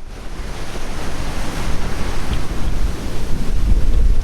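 Strong wind buffeting the microphone over the rush of sea water along a sailboat's hull, in winds of 20 to 25 knots. Gusty low rumble that grows louder over the first second or so.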